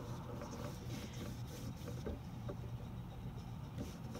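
Paintbrush strokes sweeping back and forth across paper with wet acrylic-style paint, faint scratchy swishes over a low steady room hum.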